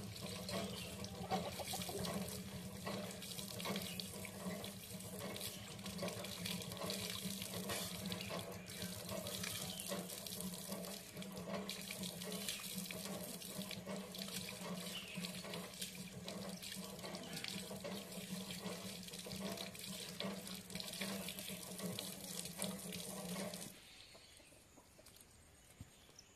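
Water running and splashing steadily, as from a tap into a basin during washing up, then stopping abruptly near the end.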